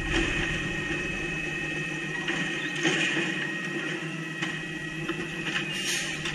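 Automated side-loader garbage truck's arm lifting a trash cart, dumping it and lowering it back to the curb, with a steady high whine over the running engine. A couple of knocks sound, about halfway through and near the end.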